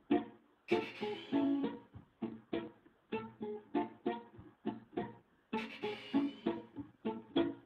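Background music: a plucked guitar playing a run of single notes, each fading quickly, about two a second.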